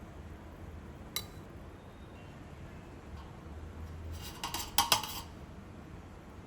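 Kitchen utensils and dishes clinking: a single click about a second in, then a quick cluster of clinks and knocks about four to five seconds in.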